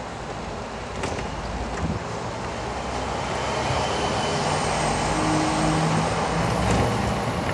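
Hong Kong double-decker tram running on street track, heard from on board: a steady rumble of wheels on the rails with a couple of light knocks early, growing louder about halfway through as a low hum comes in.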